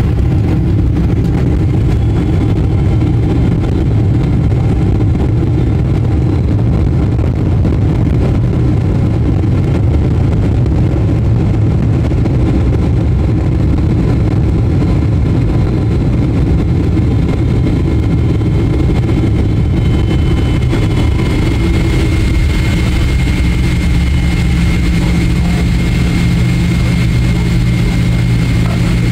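Cabin noise inside a Boeing 777-300ER taxiing after landing: a steady low rumble from its GE90 engines at idle and the rolling airframe. A thin steady whine comes in about two-thirds of the way through, and a deeper hum grows near the end.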